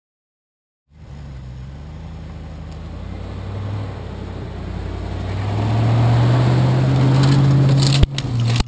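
Land Rover Defender 90's V8 engine working under load up a snowy hill, its note rising a little and growing much louder as the truck closes in on the microphone, with the tyres churning wet snow. The sound comes in after about a second of silence, and a single sharp knock is heard near the end.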